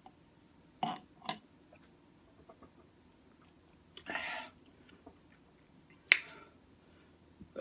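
Close-miked mouth noises from drinking and eating. There are two quick smacks about a second in, a breathy exhale around four seconds, and a sharp click near six seconds, the loudest.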